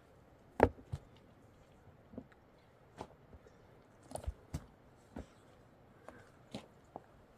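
Scattered short knocks and clicks, about a dozen at irregular intervals, the loudest less than a second in.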